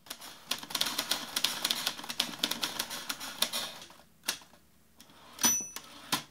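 Typewriter keys clacking rapidly for about four seconds, then a few single keystrokes. Near the end comes a short ding of the carriage-return bell and a final clack.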